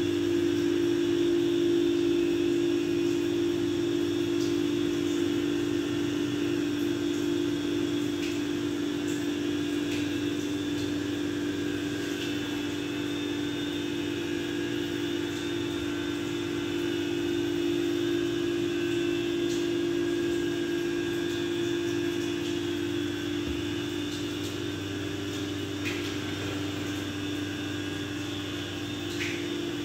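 Steady mechanical hum with a strong constant low tone, unchanging throughout, with a couple of faint clicks near the end.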